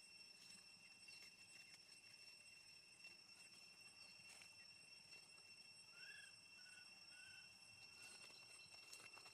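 Near silence: a faint, steady, high-pitched insect drone, with three faint short chirps about six seconds in.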